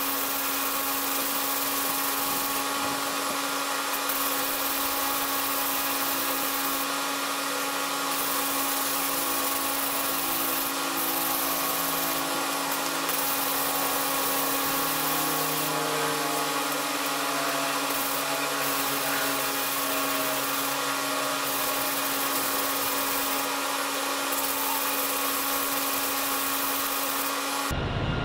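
A power tool running steadily with a constant whine.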